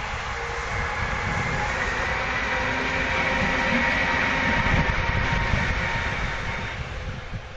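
Siemens ES64F4 electric locomotive of Locon hauling a freight train past at close range: a deep rolling rumble with a steady high whine on top, starting to die away near the end as it moves off.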